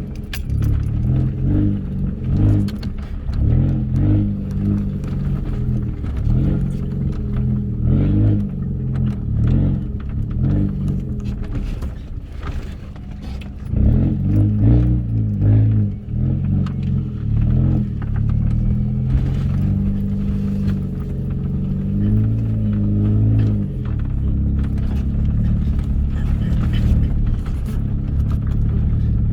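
Lowered Mini car driven slowly over a rough, bumpy track: the engine runs with its pitch rising and falling, and frequent knocks and rattles come from the car jolting over the ground.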